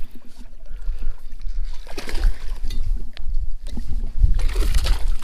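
Hooked largemouth bass thrashing and splashing at the surface beside the boat as it is reeled in, in bursts about two seconds in and again near the end, over a steady low rumble.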